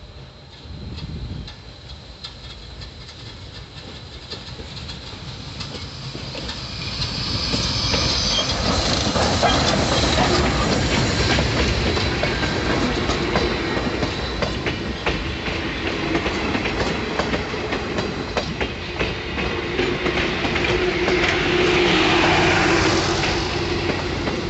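Southern Railway 4501, a 1911 Baldwin-built 2-8-2 Mikado steam locomotive, getting louder as it approaches and then passes close by. Its passenger coaches follow, rolling past with their wheels clicking over the rail joints.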